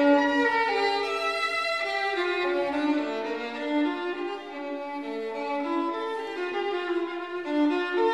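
Background music: a bowed violin playing a melody, its notes held about half a second to a second each.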